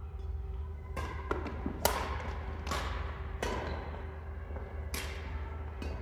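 Badminton rackets striking a shuttlecock in a doubles rally: about six sharp hits roughly a second apart, the loudest about two seconds in, over a steady low hum.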